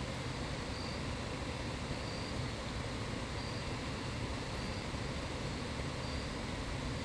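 Steady low rumble and hiss of outdoor background noise, with a faint short high chirp repeating about every second and a quarter.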